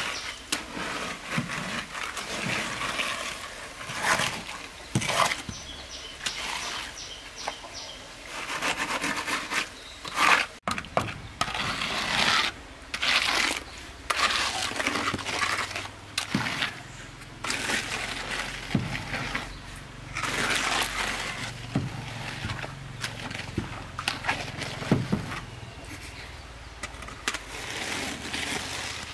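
Wooden hand float scraping and swishing over wet concrete in repeated irregular strokes, smoothing the surface of a freshly poured floor slab.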